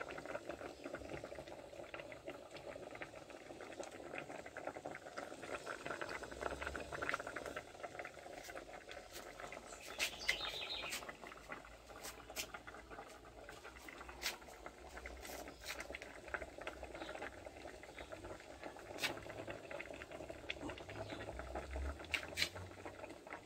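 Pots boiling and simmering on a wood-fired stove: a steady bubbling patter with many scattered sharp crackles.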